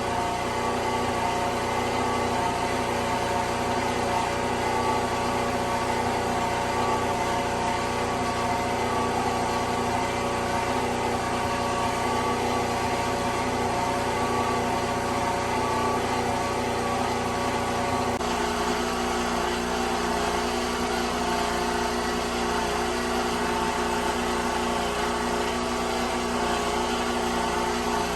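Portable generator engine running steadily at a constant speed. About eighteen seconds in, its low hum changes abruptly, as if its load shifts.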